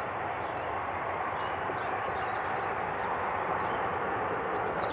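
Steady, distant jet noise from a Bombardier CRJ-900LR's two rear-mounted turbofans as the airliner rolls out along the runway after touchdown. Birds chirp over it, most clearly near the end.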